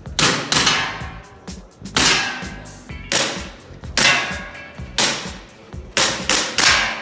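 Gas-blowback gel blaster pistol firing a string of about a dozen sharp shots, many in quick pairs about a third of a second apart, during a timed speed run.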